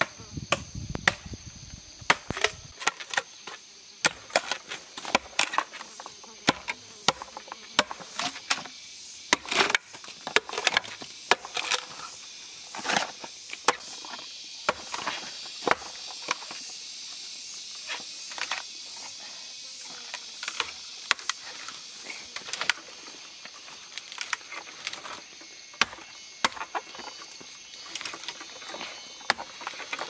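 Machete blade chopping into green bamboo culms: repeated sharp strikes at an irregular pace, about one or two a second, over a steady high background hiss.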